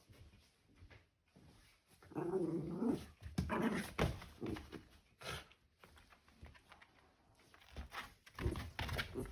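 Shiba Inu growling playfully in short bursts, with a few sharp knocks in between.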